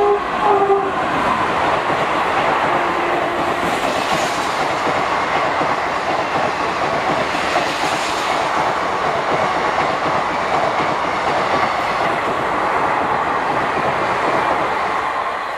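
WAP-4 electric locomotive's horn ending less than a second in, then the express's coaches passing at speed: a loud, steady din of wheels on rail.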